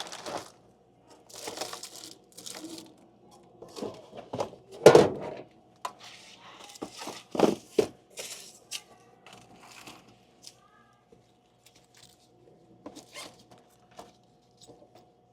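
Snack packets crinkling and items being handled, with scattered knocks and thunks; the loudest thunk comes about five seconds in. A faint steady hum runs underneath.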